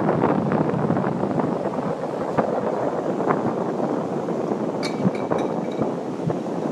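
Wind buffeting the phone's microphone, a steady rushing noise with gusts. About five seconds in, a few short high chirps.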